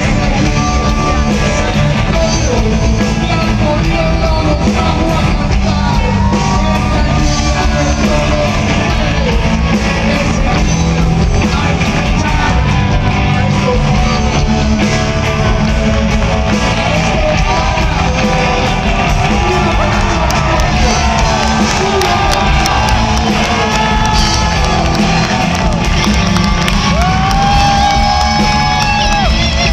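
Live rock band playing loudly, recorded on a phone's microphone, with singing and yells from the crowd.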